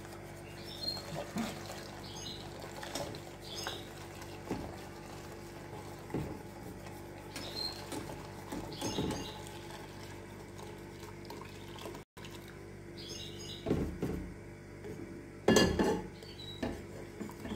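Hot milk poured in a thin stream from an enamel saucepan into a steel pan of hot caramel, the liquid splashing, with scattered small clinks of a wire whisk against the pan over a steady low hum. A louder metal clank comes near the end.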